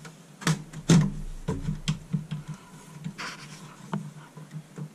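Sharp clicks and knocks of a computer case's dust filter being pushed and popped into place, the loudest about a second in, with a short scrape about three seconds in.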